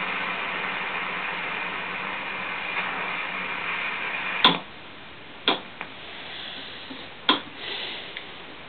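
Dancom R203 marine HF receiver playing shortwave static with faint steady tones while tuned around 11 MHz. About four and a half seconds in, a sharp click and the hiss drops, then several more clicks follow as the frequency is stepped up to 14 MHz.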